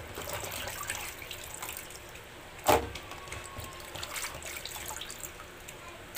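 Water splashing and sloshing as hands wash crabs in a basin of water, with many small clicks of shell, and one loud knock about halfway through and another right at the end.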